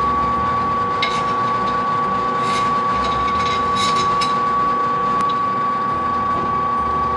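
Benchtop drill press running steadily with a constant high whine, turning a microstop countersink cutter. A few short scraping bursts come in the middle as the cutter bites into aluminum, test-cutting a countersink for the depth setting.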